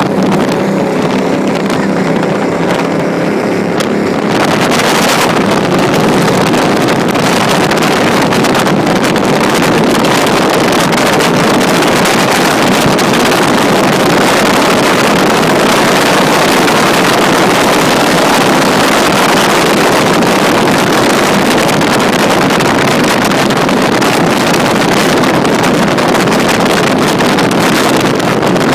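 36 Skater catamaran powerboat running across open water, its engine drone heard in the first few seconds. About four seconds in, a loud, steady rush of wind and water takes over and largely covers the engine tone.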